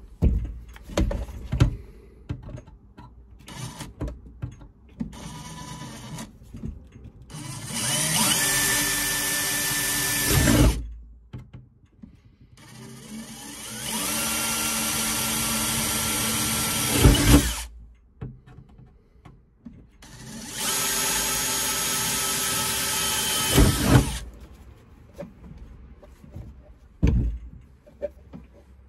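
Cordless DeWalt drill drilling holes with a twist bit: three runs of three to four seconds each with a steady motor whine, each ending sharply. Clicks and knocks of handling come between the runs.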